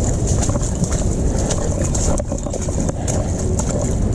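All-wheel-drive e-bike going through a muddy puddle: tyres churning and spattering mud and water, with a constant low rumble and crackle.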